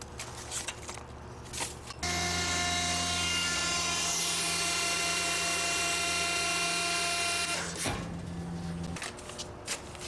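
A few short scrapes and knocks, then a motorised machine or power tool starts about two seconds in and runs at a steady whine with a hiss for about six seconds before cutting off abruptly.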